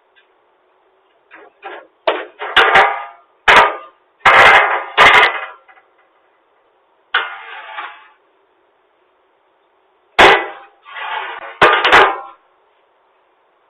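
A run of loud, sharp bangs, most followed by a short clattering rattle, in several groups with a pause of about two seconds after the middle group.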